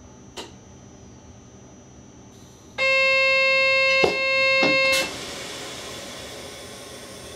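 Train cab dead man's (vigilance) buzzer sounding a loud, steady tone for about two seconds while the dead man's lamp is lit, warning the driver to acknowledge the device. A faint click comes shortly before it, two clicks while it sounds, and a hiss that slowly fades after it stops.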